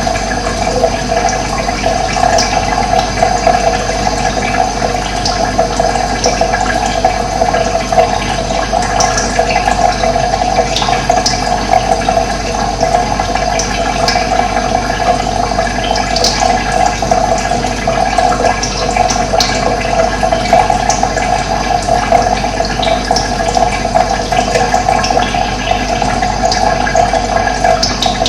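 Running water flowing steadily, with a few faint, brief high bird chirps now and then.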